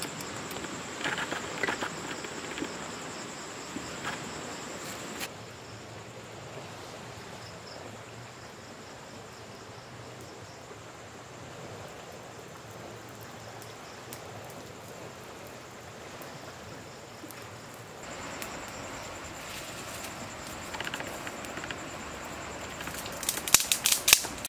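Night insect chorus: a steady high-pitched trill for about the first five seconds and again from about eighteen seconds in, with a quieter hiss between. A quick run of sharp clicks near the end.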